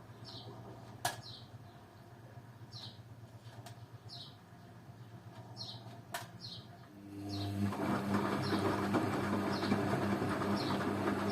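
Beko washing machine on a 50 °C synthetics wash: the drum rests with a low hum and two sharp clicks, then about seven seconds in the motor whines up and the drum starts tumbling the load again. A faint short high chirp repeats about once a second.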